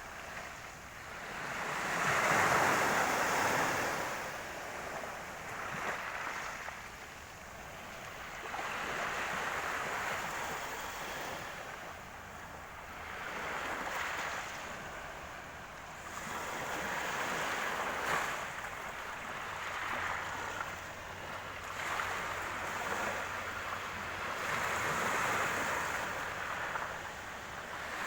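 Black Sea surf breaking on the shore, the noise of the waves swelling and washing in every few seconds.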